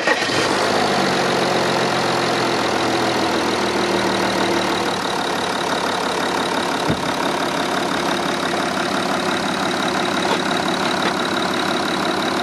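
Audi A4 3.0 TDI V6 diesel engine idling steadily just after being started. Its timing chain and injectors have been freshly renewed to cure a chain-drive rattle. A layer of tones in the first few seconds fades as the idle settles.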